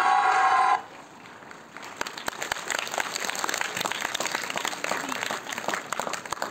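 Audience applauding, a dense patter of many hands clapping that builds up about two seconds in. Before that, a loud held sound cuts off abruptly just under a second in.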